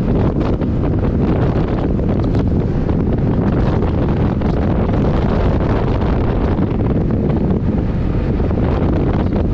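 Wind rushing over a GoPro Hero 8's microphone while riding a Yamaha NMAX scooter: a steady low rumble with no clear engine note.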